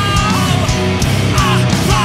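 Live rock band playing loud: electric guitar and a drum kit with a regular beat, and sung vocals on top.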